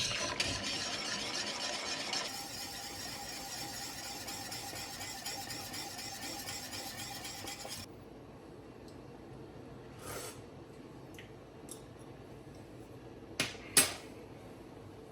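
Whisk scraping around a pot of thickening cornstarch gravy, fading after the first couple of seconds, with a steady hiss that cuts off suddenly about eight seconds in. Then a few sharp metal clinks of a utensil against the pot, the loudest two close together near the end.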